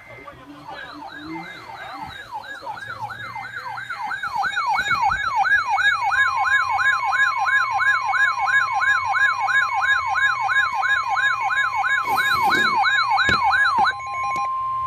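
Weather alert receiver alarm: a siren-like tone sweeping rapidly up and down about twice a second, growing louder over the first few seconds, heralding a tornado warning. A steady tone near 1 kHz, typical of the NOAA Weather Radio 1050 Hz warning alarm, joins midway and is heard alone near the end.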